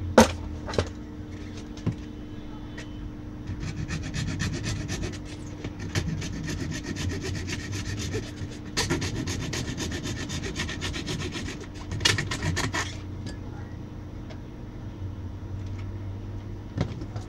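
Hand tool scraping the plastic case of a laptop power adapter: a few knocks from handling at first, then a run of fast, even scraping strokes starting about three seconds in, growing louder about nine seconds in and stopping around thirteen seconds.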